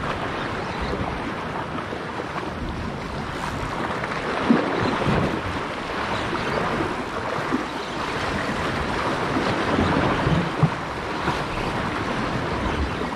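Sea surf washing against shore rocks, with wind buffeting the microphone; a couple of sharper splashes or knocks stand out about four and a half and ten and a half seconds in.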